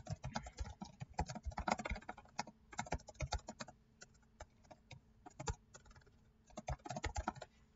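Typing on a computer keyboard: quick, irregular key clicks in runs, with a sparser lull a little past the middle.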